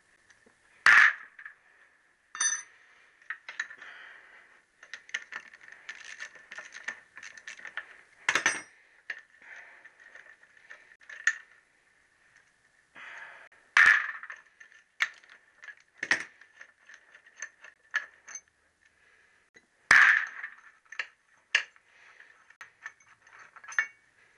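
Metal hand tools and loose parts clinking and knocking against a motorcycle gearbox casing as it is being taken apart. About six sharp knocks stand out among many lighter clinks.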